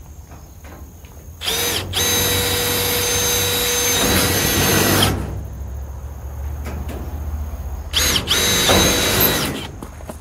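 Power drill running in several separate bursts, each spinning up to a steady whine: a brief one, a run of about three seconds, then two shorter runs near the end.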